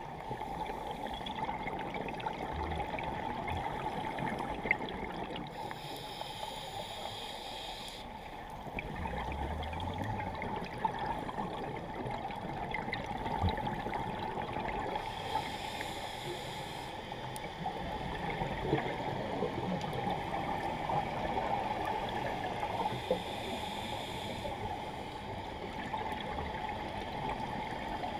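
Underwater recording from a scuba diver's camera: a steady watery hiss, broken three times by a couple of seconds of louder, hissier regulator exhaust bubbles.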